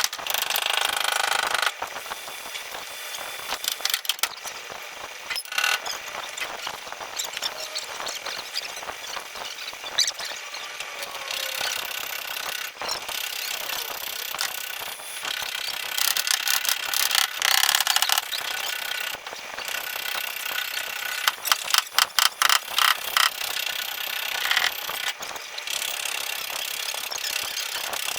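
Metal squeaks and scrapes from hand tools worked against a car's body panel during dent repair, with scattered clicks and a run of rapid clicks about three quarters of the way through.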